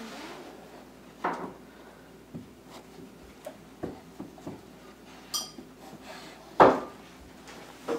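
A baby's hands patting and tapping on carpeted stair treads as she crawls up the stairs, testing each hand-hold before pulling up. Scattered soft taps and knocks, with one louder thump about two-thirds of the way through.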